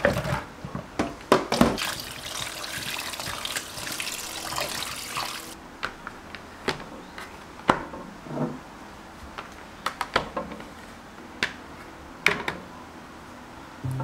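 Kitchen tap running into a sink for about four seconds and shutting off suddenly, with scattered knocks and clatter of items being handled around it.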